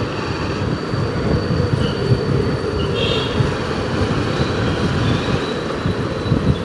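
Steady rumble of a moving vehicle: road and wind noise loud on the microphone, with a few brief faint high tones about three seconds in.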